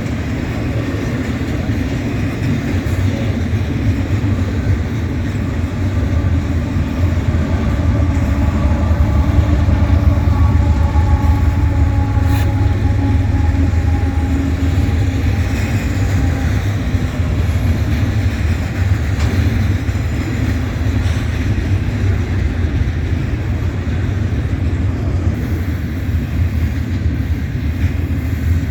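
Freight train rolling past: a steady low rumble of wheels on rail, a little louder partway through, with faint thin squeals from the wheels.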